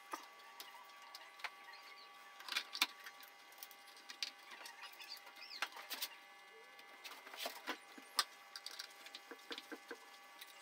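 Scattered light clicks and knocks of chainsaw parts and hand tools being handled as the guide bar, chain and plastic clutch cover are fitted back onto the saw, over a faint steady hum.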